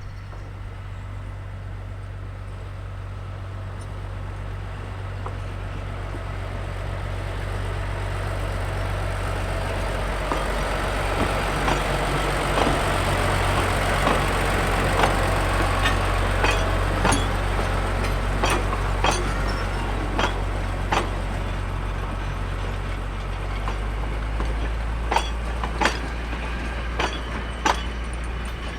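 A Niigata diesel locomotive and its passenger train passing: the engine's low drone grows to a peak about halfway through, then eases off. Through the second half, wheels click sharply over the rail joints.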